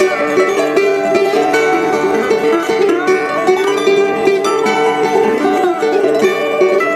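Background music led by a plucked string instrument like a mandolin or ukulele, with quick, lively picked notes.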